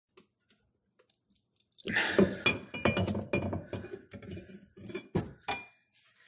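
Metal clinking and rattling as a kitchen sink's basket strainer locknut is tightened from below. A dense run of sharp clinks, some with a faint ring, starts about two seconds in and stops shortly before the end.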